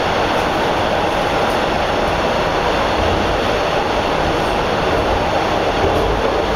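TTC Bombardier T1 subway car running on the rails, a steady train noise heard from inside the passenger car.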